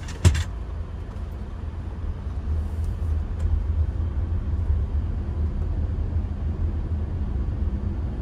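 Cabin noise of a 2022 Audi Q5 with a turbocharged four-cylinder, driving along: a steady low rumble of road and engine noise that grows a little louder over the first few seconds. A single sharp knock sounds about a quarter second in.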